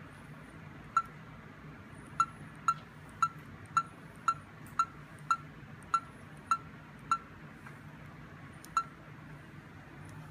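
Short, sharp electronic pips from a homemade Space: 1999 commlock replica prop: one about a second in, then ten in an even run of about two a second, and a last one near the end.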